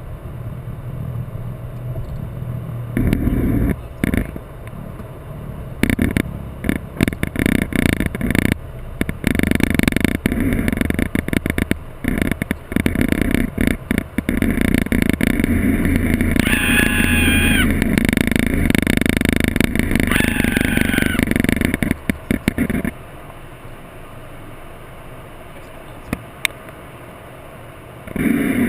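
Aircraft engine running loud and steady, with wind buffeting the microphone. A short high whine sounds twice in the middle. The engine noise drops off sharply near the end.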